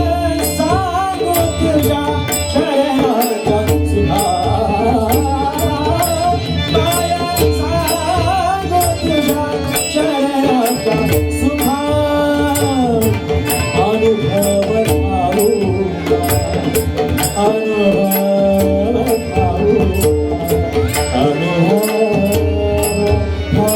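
Indian devotional bhajan music: a gliding melodic line over a steady held drone, with tabla and regular hand-cymbal strikes keeping the rhythm.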